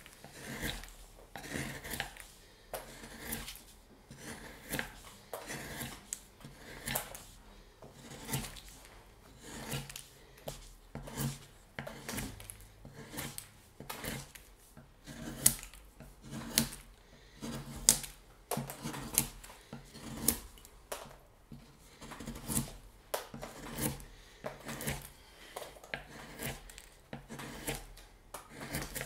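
Carving knife cutting into wood: a run of short slicing and scraping strokes, irregularly spaced at about one or two a second.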